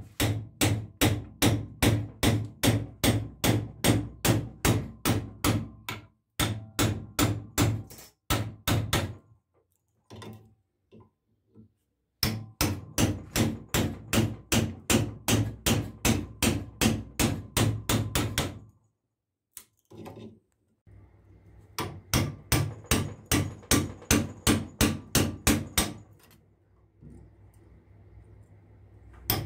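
Hammer blows on a steel chisel driven into an electric motor's stator to cut out its old burned copper windings. The blows come in quick runs of about three a second, broken by a few short pauses.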